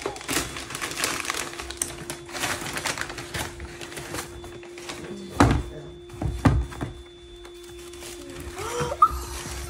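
Wrapping paper being torn and rustled off a gift, then thumps as a cardboard shoebox is handled and its lid opened: two about halfway through and another near the end.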